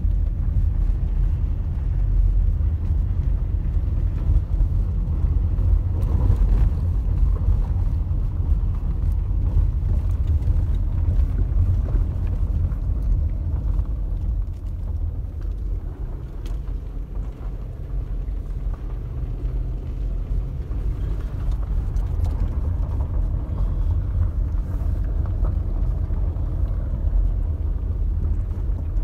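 Car driving on an unpaved dirt and gravel road, heard from inside the cabin: a steady low rumble of engine and tyres, with a few faint knocks from the road surface. The rumble eases slightly in the middle, then picks up again.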